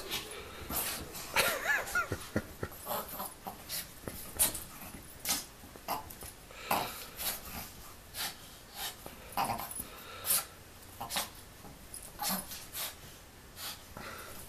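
A small dog and a ferret play-fighting: a run of irregular short, sharp sounds and scuffling, with the dog's play noises and a brief wavering whine about two seconds in.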